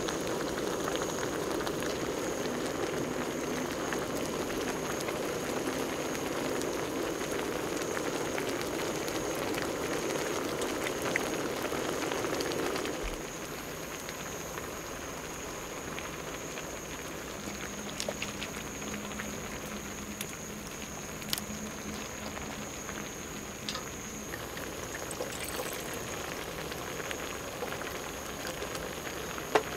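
Stew bubbling at a full boil in a shallow aluminium pan on a portable gas burner, with a spoon stirring through it. About halfway through the bubbling drops off suddenly to a quieter hiss with a few light clicks, and near the end water is poured into a small metal cup.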